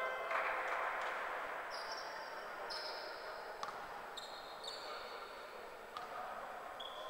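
A basketball bounced a few times on a wooden court as a player readies a free throw, with short high squeaks of sneakers on the floor, in a large echoing hall. A game horn's note cuts off just after the start.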